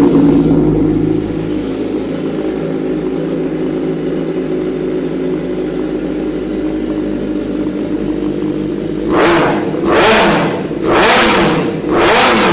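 2016 Suzuki GSX-R600's inline-four breathing through an aftermarket full-system exhaust, freshly started and idling high, settling down about a second in. Near the end it is revved four times in quick succession, each rev rising and falling.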